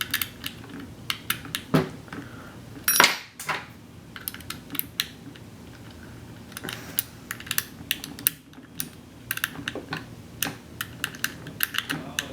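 Small hand tool working a screw out of a Tippmann 98 Custom paintball marker's body: many quick, irregular little clicks and ticks of tool and screw against the metal and plastic, with a louder clatter about three seconds in.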